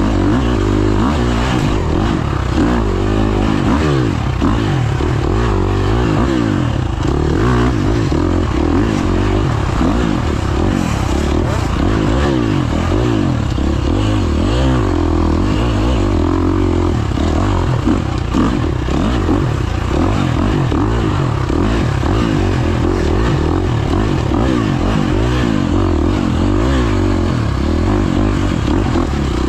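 Off-road dirt bike engine, heard onboard, revving up and down without a break as the bike is ridden hard over a rough, rocky trail, with a few short knocks from the bike over the ground.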